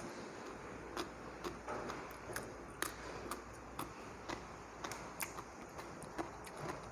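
Mouth sounds of someone chewing crisp raw green papaya: irregular crunchy clicks, one or two a second.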